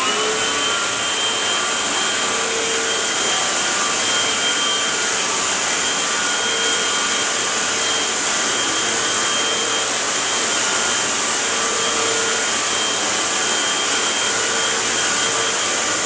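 Eureka SuctionSeal Pet upright vacuum cleaner running steadily on carpet in floor mode with its brush roll on. A steady rush of air carries a high, constant whine.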